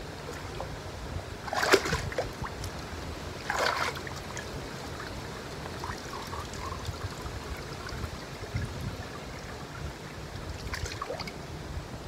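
Water sloshing and splashing in a shallow inflatable pool as legs are lifted and pushed back down through it. There are two louder splashes about two seconds apart near the start and a softer one near the end, over a steady low rumble.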